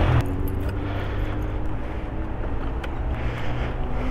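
Sport motorcycle engine running steadily at low revs as the bike rolls slowly, with some road noise.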